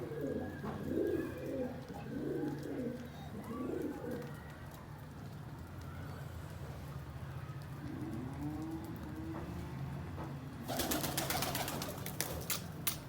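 Pigeons cooing: a string of low, repeated coos for the first few seconds and another drawn-out coo about two-thirds of the way through, over a steady low hum. Near the end a rapid run of rustling, clattering clicks sets in.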